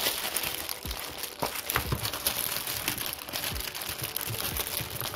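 Clear plastic packaging bag crinkling and crackling as it is handled, with a few light knocks in between.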